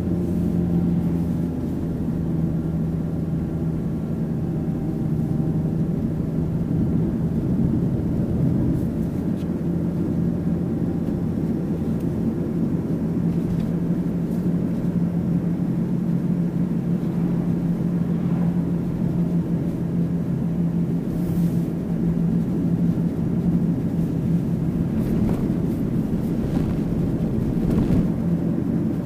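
Mitsubishi Pajero Mini kei SUV driving at a steady cruise: an even engine drone with constant tyre and road noise.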